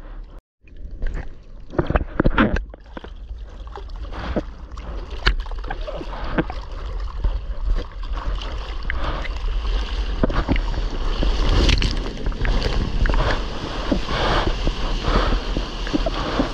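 Sea water splashing and sloshing against a GoPro in the surf, in many irregular strikes that come thicker in the second half, over a steady low rumble of wind on the microphone. The sound cuts out for a moment about half a second in.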